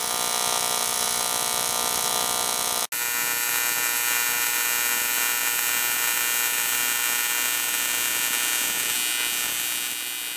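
AC TIG welding arc on aluminum from an HTP Invertig 400 welder: a steady, high buzz that drops out for an instant about three seconds in, then carries on and fades near the end.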